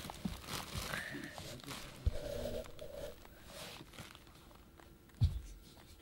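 A rabbit nibbling seeds and shuffling on carpet close to the microphone: soft rustling and small clicks. A single dull knock comes about five seconds in, the loudest sound.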